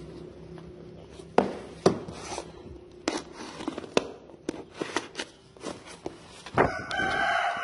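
Utility knife slitting packing tape and cardboard on a parcel: a series of sharp scrapes and clicks as the blade is drawn along the seam and the box is handled. Near the end a rooster crows in the background.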